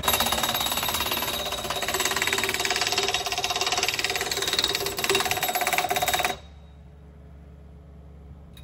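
Tractor engine running with a fast metallic rattle as the tractor drives over rough woodland ground; it cuts off abruptly about six seconds in, leaving quiet outdoor background.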